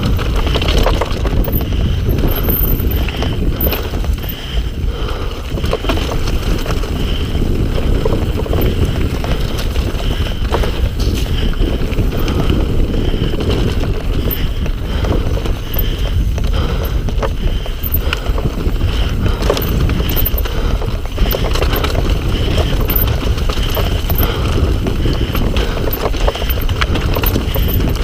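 Mountain bike riding down a rough downhill trail: tyres running over stones and the chain and frame rattling with a constant clatter of small knocks, with wind rushing over the microphone.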